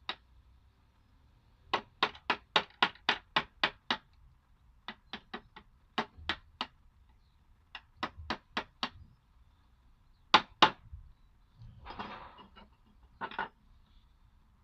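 Hand tool striking wood in quick runs of sharp knocks, about four a second, with two louder blows after the middle. Near the end come two short scraping strokes.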